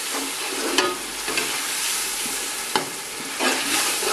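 Tomato-and-onion masala frying in oil in a large aluminium pot, sizzling steadily while a metal slotted spoon stirs and scrapes through it. The spoon clicks against the pot twice.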